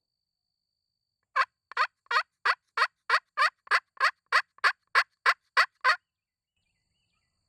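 Turkey call run as a long series of hen yelps: about fifteen loud, evenly spaced rasping notes, roughly three a second, starting about a second and a half in and stopping about a second and a half before the end.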